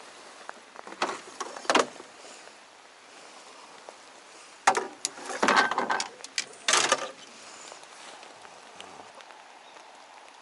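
Clattering knocks of a landing net and fishing gear being handled and set down in a small boat, in two bouts about a second in and again from about four and a half to seven seconds in, the second the louder. Behind it, a steady hiss of rain falling on the water.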